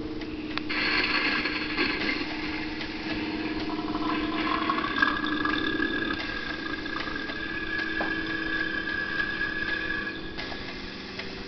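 Pneumatic animatronic monster prop running: a steady low drone with a few held pitched tones, broken by a handful of short sharp clicks as its air-driven arms move.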